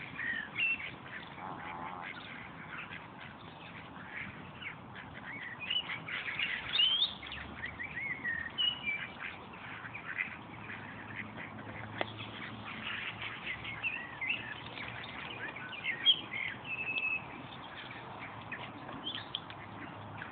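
Canada goose goslings peeping: many short, high peeps, some rising and some falling, in quick irregular runs.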